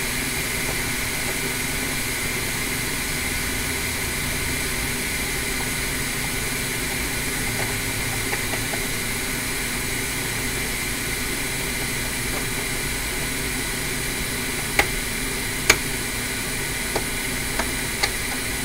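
A steady mechanical hum and hiss runs throughout. In the last few seconds a handful of small, sharp clicks and scratches come from a tool scraping the solder mask off a laptop logic board to bare the copper of a ground pad.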